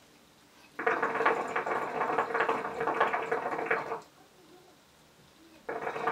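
Hookah water bubbling as smoke is drawn through the hose: a long draw of about three seconds starting about a second in, then a shorter one near the end.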